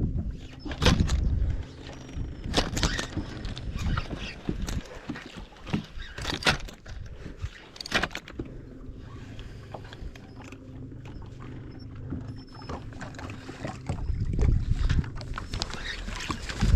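Wind gusting against the microphone in a snowstorm, with scattered knocks and clicks from fishing gear or the boat being handled. A faint steady hum runs through the middle stretch.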